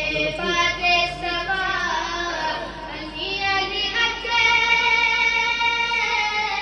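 A boy singing solo into a microphone: long held notes with slow slides in pitch between them, in a devotional chant.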